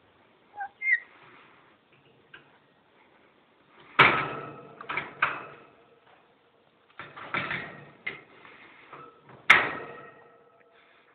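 A caged parrot chirps briefly. Then a metal wire birdcage clangs and rattles in several loud, sudden bursts, and its bars ring on for a moment after the last one.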